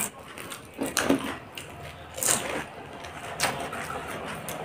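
Crisp panipuri shells crunching as they are bitten and chewed, in a few irregular bursts.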